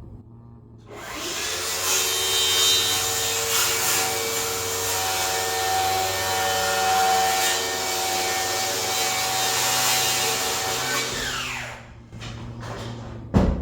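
Electric power tool cutting along a wooden floor joist to trim about a quarter inch off it. The motor spins up about a second in, runs steadily under load for about ten seconds, then winds down.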